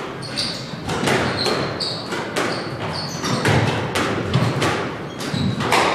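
Squash rally: a rapid, irregular series of sharp smacks as the ball is struck by racquets and hits the court walls, with short high squeaks of shoes on the wooden court floor.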